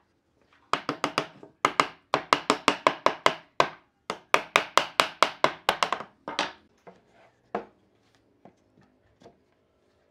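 Rapid, even strikes on wood in three runs of about five a second, then a few slower, scattered knocks.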